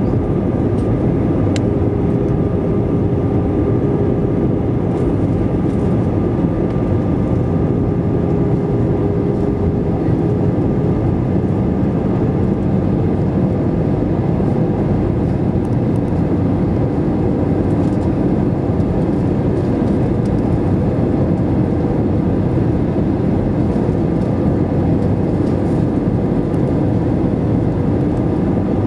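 Airbus A320 cabin noise on approach, heard from a window seat over the wing: the steady low rumble of the jet engine and the airflow. A faint hum runs under it and fades out about ten seconds in.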